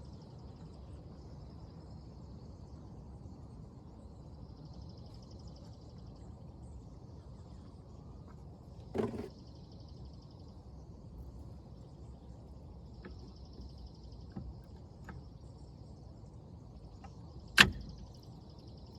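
Outdoor background of insects trilling in pulses over a steady low hum. There is a knock about halfway through and a sharp, louder click near the end.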